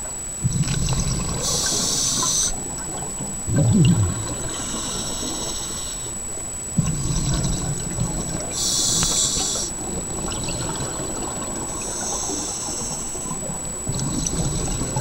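A scuba diver's regulator breathing underwater: four hissing inhalations at about three- to four-second intervals, with the low bubbling rumble of exhaled air between them.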